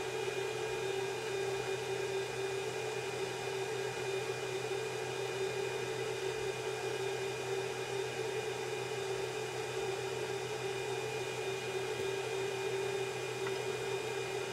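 Steady whir and hum with a few held tones, unchanging throughout, typical of a powered-up 3D printer's cooling fans and power supply.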